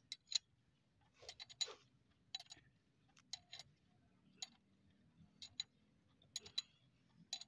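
Light metal clicks and clinks at irregular intervals, often in pairs, from engine parts and hand tools being handled while pistons and connecting rods are fitted to an engine block.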